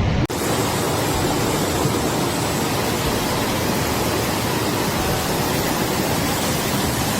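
Steady, loud rushing noise with no pitch, cutting in abruptly just after the start.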